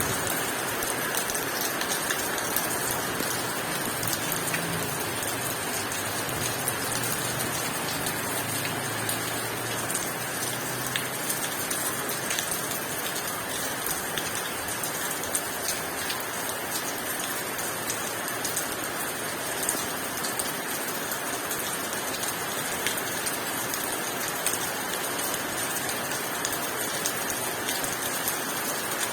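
Heavy rain pouring steadily: a dense, even hiss flecked with the ticks of single drops.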